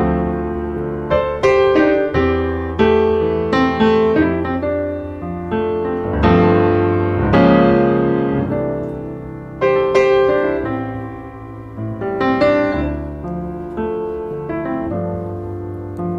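Background piano music: a slow, gentle run of struck notes and chords over held bass notes.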